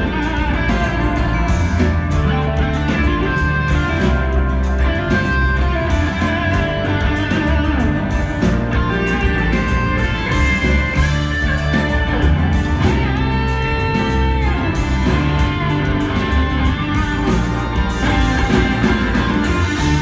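Live rock band playing an instrumental passage: electric guitars over bass guitar and a steady drum beat.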